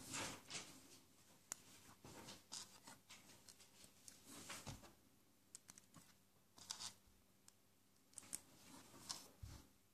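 Faint, scattered clicks and scratchy rustles of small plastic Lego and Mega Bloks pieces being handled and pressed onto a brick plate, with a couple of soft low thumps.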